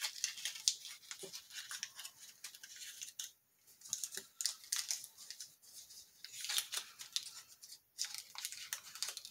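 Paper wrapper being peeled and torn off a stick of margarine by hand: quiet, irregular crinkling and tearing paper in short clusters.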